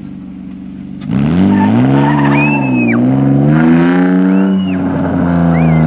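BMW E30 drift car's engine revving hard from about a second in, its pitch climbing and dropping as the car slides. Three short tyre squeals break in over it.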